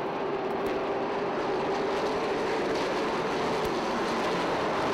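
Pavement late model race cars with crate engines running flat out around a short oval, a steady engine drone holding an even pitch.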